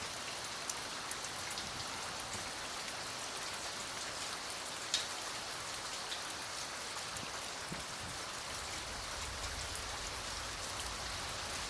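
Steady rain falling, with scattered ticks of single drops and one sharper tick about five seconds in.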